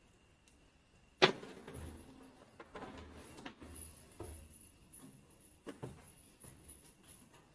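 A sharp knock about a second in, then scattered softer knocks, rattles and shuffling: a leopard nosing along and brushing against a wire-mesh crate.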